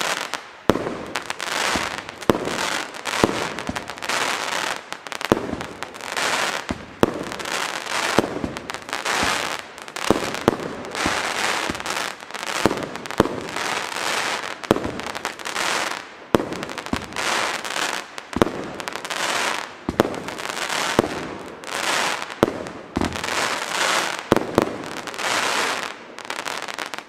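Funke Duplex Cracker Rain firework battery firing shot after shot, about one a second. Each launch thump is followed by loud crackling from the crackling stars, and the firing stops abruptly near the end.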